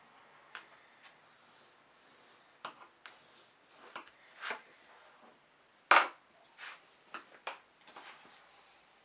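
Crafting handling sounds: a bone folder rubbing and pressing along paper pages, then scattered taps and short scrapes as tools are put down and picked up on a cutting mat. One sharp knock about six seconds in is the loudest.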